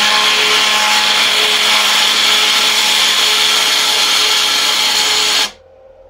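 NEMA 17 stepper motors of a DIY CNC laser engraver running loudly and steadily as an axis is driven back to zero, with a steady hum under the noise. The sound cuts off suddenly about five and a half seconds in when the move ends.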